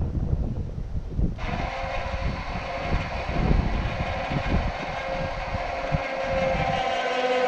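Sawmill machinery running with a low rumble. About a second and a half in, a steady high-pitched hiss with several held ringing tones starts abruptly and keeps going.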